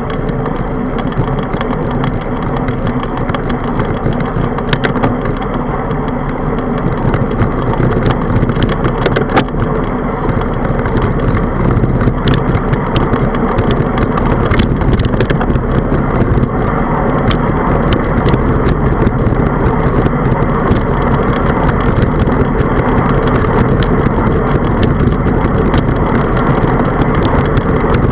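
Wind rushing over a handlebar-mounted camera's microphone, with the rumble of a bicycle rolling on asphalt. Scattered sharp clicks and rattles come through, more often in the second half.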